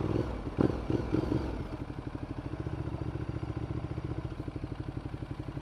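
Ducati Multistrada 1200's L-twin engine dropping to a lumpy idle with a rapid, even pulse. A few sharp clunks come in the first second and a half.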